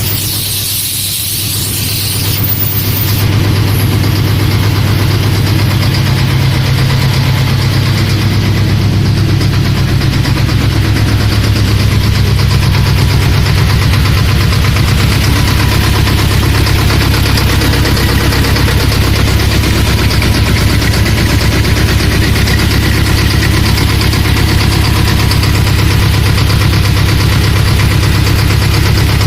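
A T-25 tractor's two-cylinder air-cooled diesel engine running steadily at idle, with a short hiss over the first few seconds.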